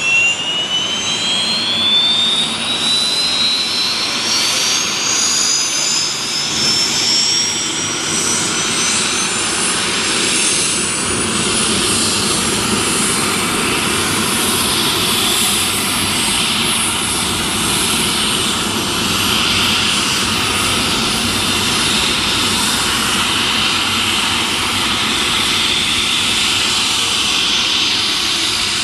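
AgustaWestland AW139 helicopter's turboshaft engine starting up: a high turbine whine rising steadily in pitch over the first ten seconds or so, then levelling off into a steady whine over a constant rushing roar.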